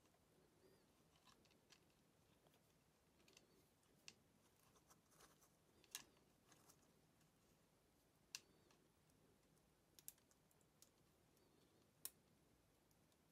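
Near silence broken by a handful of faint, sharp plastic clicks and taps as wire ends are handled and pushed into the terminals of a power drill's trigger switch.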